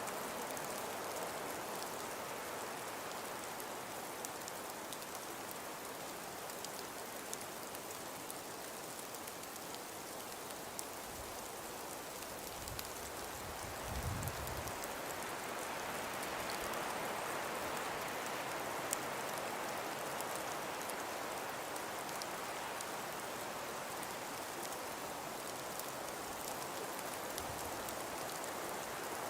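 Steady winter wind with the fine hiss of falling snow, swelling in a gust a little past the middle. A brief low thump comes about halfway through.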